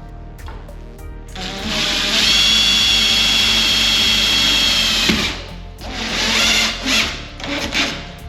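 Power drill running into the wooden door while fixing the lock: one long steady run of about four seconds, then two short bursts.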